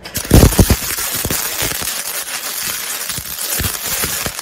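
Semi-automatic MIG welder's arc, set to maximum voltage and run without shielding gas, crackling and spitting steadily as the wire burns into a steel bar. A few loud pops come as the arc strikes in the first second.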